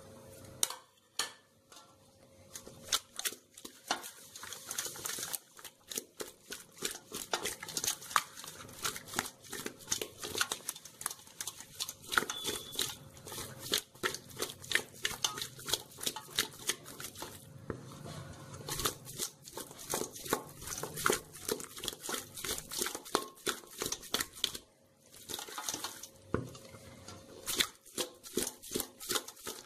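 Raw fish pieces being mixed by hand with spice masala and ginger-garlic paste in a dish. It is a dense, irregular run of small clicks and knocks against the dish, with a couple of short pauses.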